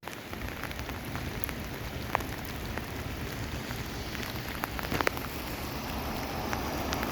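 Steady rain, with scattered single drops ticking sharply now and then.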